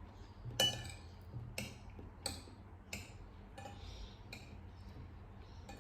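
A metal spoon clinking against a dish while eating: a handful of light clinks about a second apart, some with a short ring.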